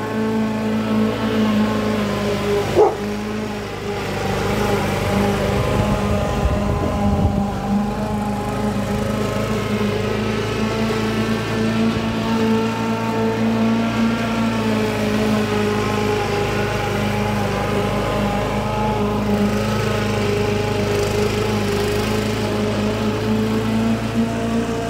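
Petrol walk-behind rotary lawn mower's small four-stroke engine running steadily while cutting grass, its pitch wavering slightly as it works. A brief sharp sound stands out about three seconds in.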